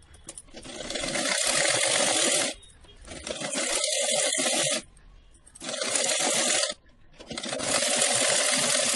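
Vintage black sewing machine stitching through layers of shawl fabric, set to its longest stitch. It runs in four spells of one to two seconds with short pauses between, the first one building up to speed as it starts.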